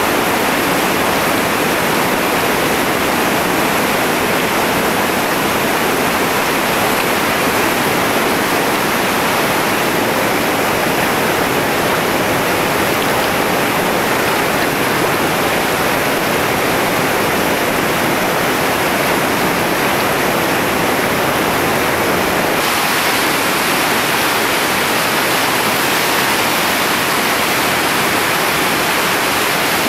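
Loud, steady roar of whitewater rapids on the Chattooga River, water pouring over and around boulders. The hiss brightens slightly about two-thirds of the way through.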